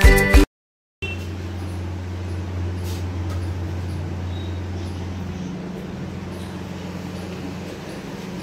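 Intro music cuts off about half a second in; after a brief silence, a steady low hum with a light hiss runs on, its deepest part fading out about halfway through.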